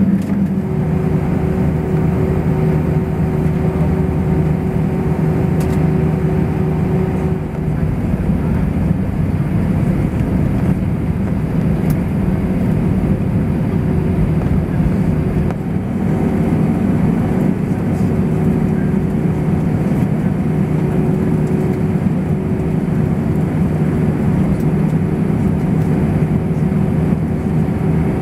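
Airbus A320 jet engines running steadily, heard from inside the passenger cabin: a constant low rumble with a steady hum.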